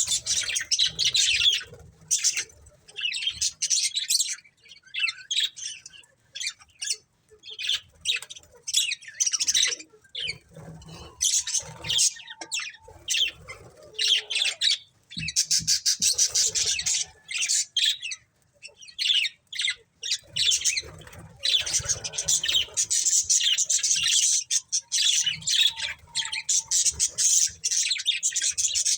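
Budgerigars chirping and chattering in rapid bursts of high twittering, with short gaps at first and near-continuous chatter over the last several seconds.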